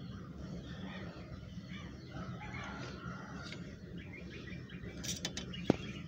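Faint bird chirps over a steady low hum, then a few sharp metallic clicks near the end as the red-handled brass ball valve on the stove's oil feed is turned.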